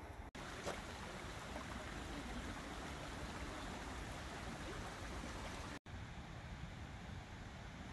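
Shallow mountain creek running over rocks: a steady rushing of water, broken by a brief drop to silence about a third of a second in and again near the end.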